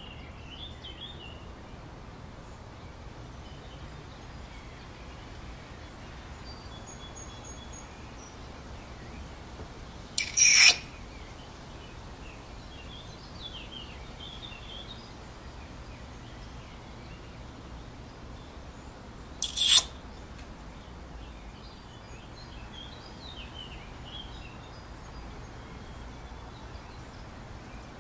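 Outdoor ambience of faint birdsong, scattered chirps over a steady background hiss. It is broken twice by a short, loud sound effect, once about ten seconds in and again about nine seconds later.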